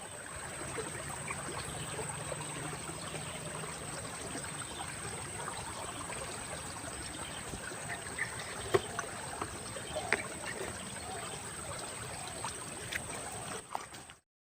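Steady trickle of flowing stream water, with a few small clicks over it; it cuts off abruptly near the end.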